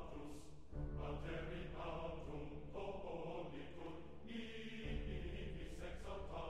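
Background music: choir-like chanting voices over a low sustained drone.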